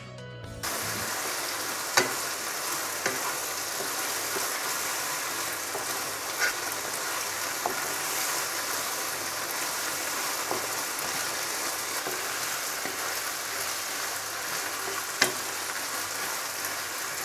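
Boneless chicken cubes sizzling steadily in hot oil in a nonstick wok while a wooden spatula stirs them, knocking sharply against the pan a few times, loudest about 2 s in and near the end. A short tail of background music comes before the sizzling starts, under a second in.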